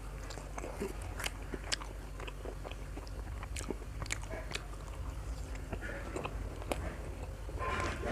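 A person chewing and biting into food close to the microphone, with many small crisp crunching clicks scattered throughout.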